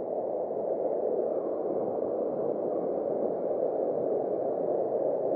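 Water pouring over a small concrete weir and churning in the pool below: a steady rushing.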